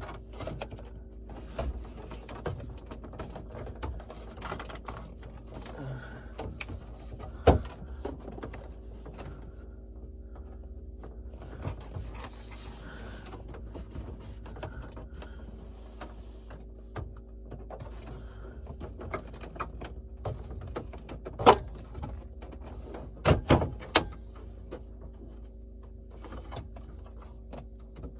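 Plastic dash trim being handled and pressed into its clips: scattered light clicks and rattles, with a few sharp snaps or knocks, one about a quarter of the way in, one about three quarters in and a quick pair soon after. A steady low hum runs underneath.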